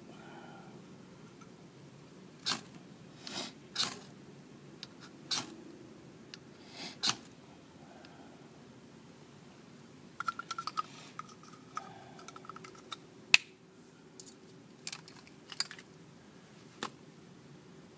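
Ferro rod being struck to light a natural-fibre fire starter: short sharp scrapes a second or two apart, then a quick run of ticks about ten seconds in and one loud sharp click a little later.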